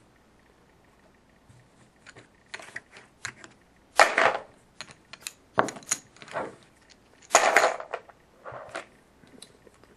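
Handling clatter: a run of clicks, knocks and short rattles of small hard objects being picked up and set down, starting about two seconds in, with louder clattery bursts about four, five and a half, seven and a half and eight and a half seconds in.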